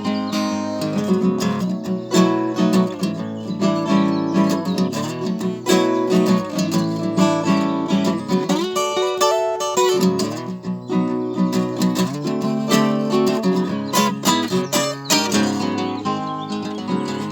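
Acoustic guitar strummed and picked in an instrumental passage of a folk-style song, with no singing, and a short run of changing notes about halfway through.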